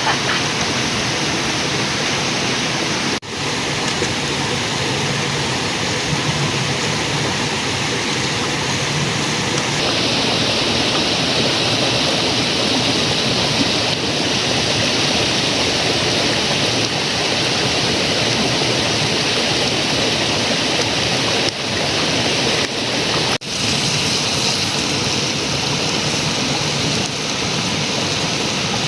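Steady rush of flowing river water, its sound shifting abruptly a few times as shots change.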